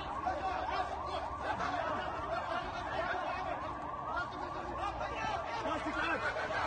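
A crowd of many voices shouting and calling over one another, no single voice standing out.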